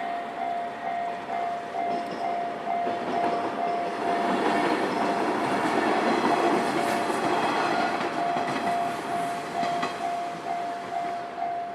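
Japanese level-crossing warning bell ringing in a steady, rapidly repeated electronic tone while a Nankai Koya Line train runs over the crossing, its wheel and rail noise swelling loudest in the middle and fading toward the end.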